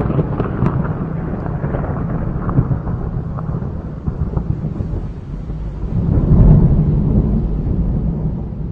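Low, steady rumbling noise with a few faint clicks, swelling about six seconds in and then slowly fading.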